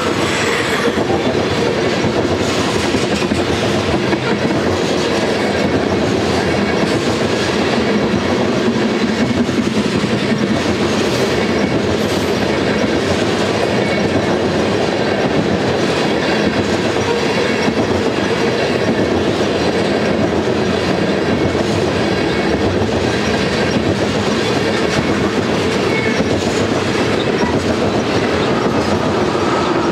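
Freight train tank cars rolling past: a steady noise of steel wheels on rail, with frequent clicks of the wheels passing over rail joints.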